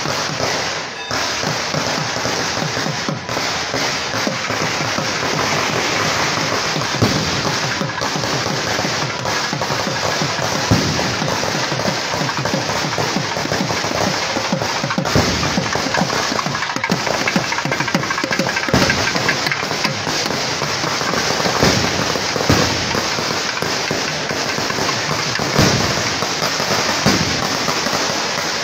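A long string of firecrackers crackling in rapid, continuous bursts, with louder bangs now and then.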